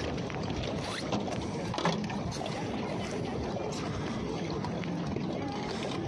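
Steady outdoor noise beside a rowing pontoon, with a couple of light knocks about one and two seconds in as oars are handled.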